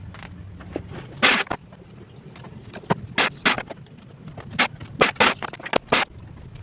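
Homemade picture-frame cutting machine working through frame moulding: a run of irregular sharp clacks and short rasping cuts, over a steady low hum.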